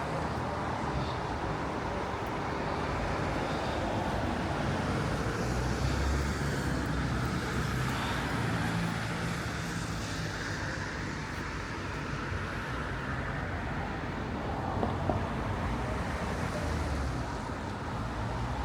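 Steady urban road traffic: cars and other vehicles passing and running, with a continuous low engine hum and tyre noise.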